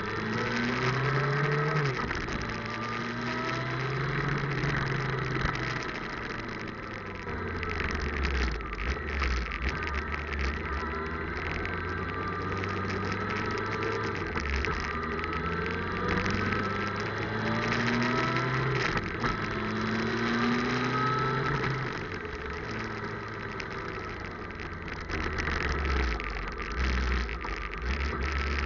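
Motorcycle engine running under way, its pitch rising and dropping back several times as the bike accelerates and changes gear. It is captured by a cheap action camera with no proper microphone, so the sound comes through crackly and distorted.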